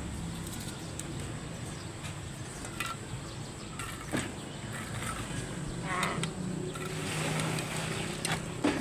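A machine engine running with a steady low hum, with a few sharp knocks on top, the loudest near the end.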